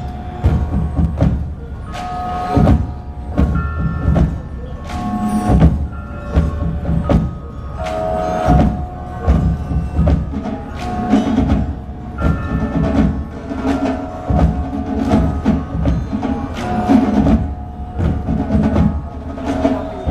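Marching band playing a percussion-heavy passage: sharp drum hits throughout, over ringing notes from the front ensemble's mallet percussion.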